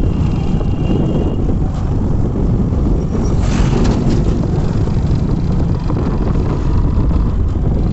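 Motorcycle engine running and wind rumbling on the microphone while riding along at a steady pace. About three and a half seconds in, a truck passing close by adds a brief rush of noise.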